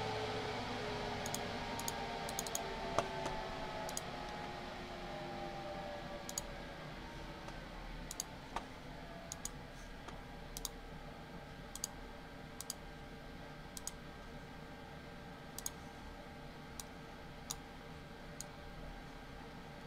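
Light computer mouse clicks at uneven spacing, about one a second, over a faint steady hum.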